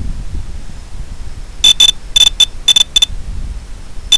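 A run of short, high-pitched electronic beeps, some in quick pairs, from about one and a half to three seconds in and once more near the end, over a steady low rumble of wind and motor noise.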